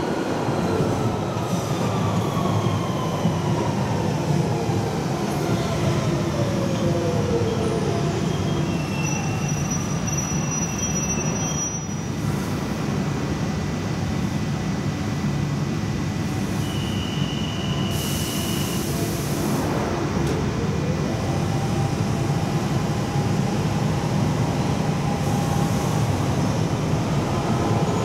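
London Underground 1992 stock train running into the platform, its motor whine falling steadily in pitch as it slows. A short high tone and a burst of air hiss follow with the train standing, and from about two-thirds of the way in the whine rises again as the train pulls away.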